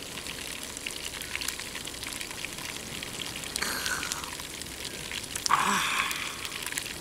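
Pork sizzling and crackling as it fries in its own fat in a pan, a steady fine spitting. Two brief louder hisses come through about four and five and a half seconds in.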